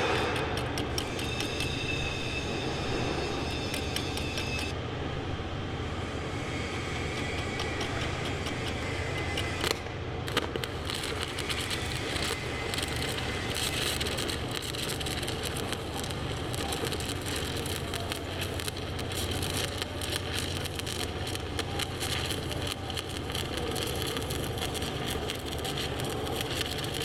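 Stick-welding arc burning an aluminium electrode on aluminium plate: a steady crackling sputter over a low hum, with a couple of sharp pops about ten seconds in.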